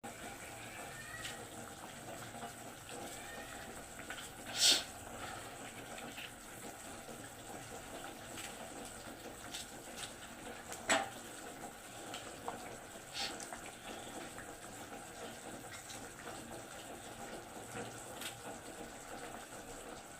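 Kitchen sounds during soup cooking: a steady water-like noise with a few sharp clinks, the loudest about five and eleven seconds in.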